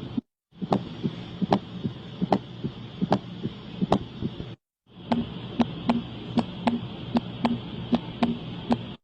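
Recorded heart sounds of the kind heard through a stethoscope: regular beats over a steady hiss, played as two clips with short silent gaps between them, the second beating faster than the first.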